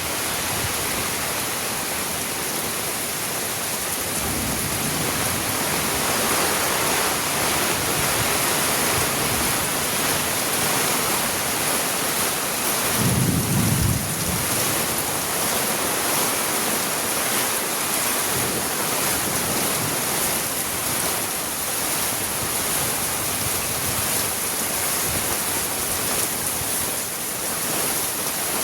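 Heavy rain falling steadily as an even hiss, with a brief low rumble about halfway through.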